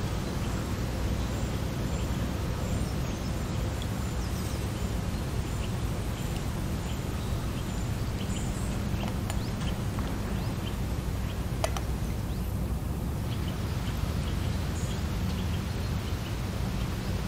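Portable gas camp stove burning steadily under a moka pot while the coffee brews, with faint scattered ticks and one sharp click about two-thirds of the way through.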